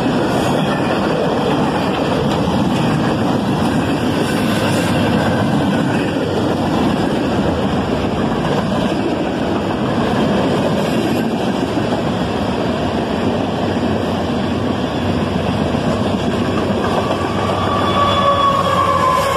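CSX freight train's cars passing at track speed: a steady, loud rumble and rattle of wheels on the rails. About three seconds before the end, a high tone joins it and slowly falls in pitch.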